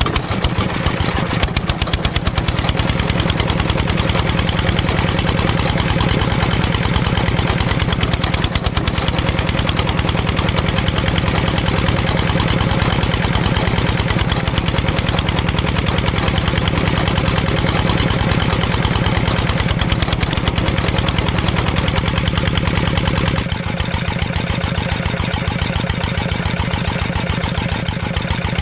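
A small engine running steadily with a fast, even pulse, dropping slightly in loudness and brightness about 23 seconds in.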